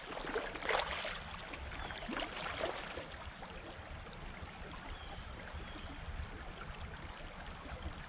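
Shallow creek water running over pebbles, with a few splashes of someone wading through the water in the first few seconds.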